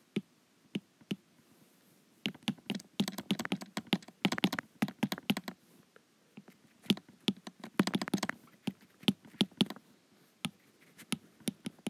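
Stylus tip clicking and tapping on a tablet's glass screen during handwriting. The taps are scattered at first, then come in quick runs as letters are written, about two to five seconds in and again around seven to nine seconds in.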